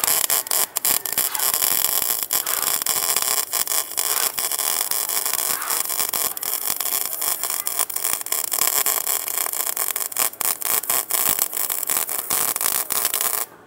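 MIG welding arc from a Mig250e welder in smart (automatic) mode, crackling steadily as it lays a bead, and then cut off at the very end. Called very smooth ("ngọt"), the sign of a stable, well-set arc.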